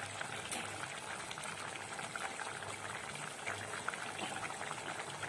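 Watery curry gravy of potatoes and peas boiling in a pot: steady bubbling with many small pops.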